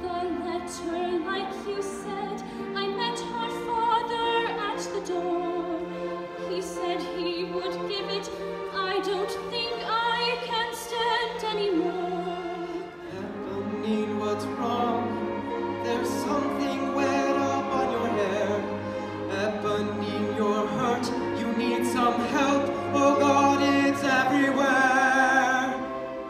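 A singer with orchestral accompaniment, the voice held in long phrases with wide vibrato over sustained string and bass notes; the bass line moves to a new, lower note about halfway through.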